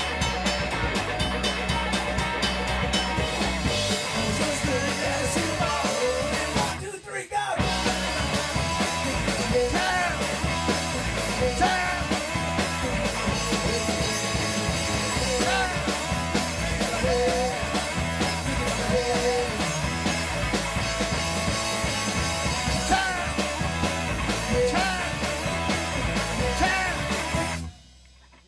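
Live rock band playing a song: electric guitars, bass guitar and drum kit with vocals. The band drops out for a moment about seven seconds in, comes back in, and the song stops abruptly near the end.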